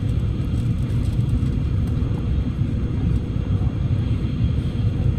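Steady low rumble of a Tokaido Shinkansen running at speed, heard inside the passenger cabin.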